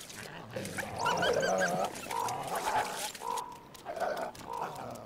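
Wild canids whining and yipping: a series of short, wavering high calls, loudest about a second in.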